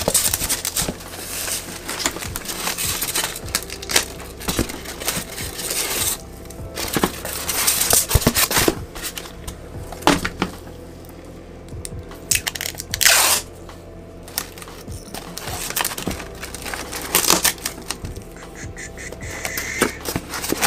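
Packing tape being pulled off the roll in several short, noisy strips, the longest about half a second, and wrapped around the lid of a cardboard shipping box. Rustling and handling of the box come between the pulls.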